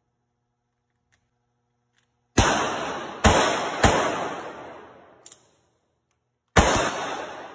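IMBEL 1911 pistol in .380 firing four shots: three in quick succession, then a single shot about three seconds later, each with a reverberant tail. A faint click falls between the third and fourth shots.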